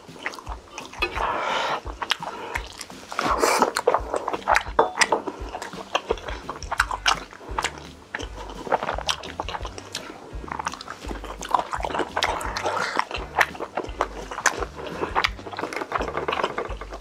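Close-miked eating of tteokbokki and sundae: wet chewing, smacking and slurping, broken by many short sharp clicks.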